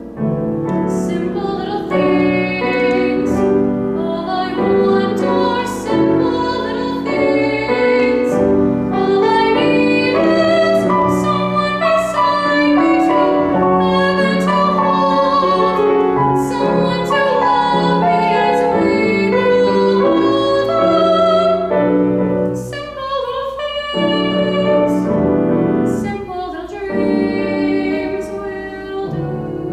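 A female voice singing in classical, operatic style, accompanied on grand piano.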